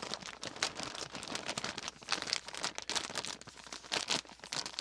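Plastic steamer bag of cooked broccoli florets crinkling as it is shaken and squeezed to tip the broccoli out, a run of irregular crackles.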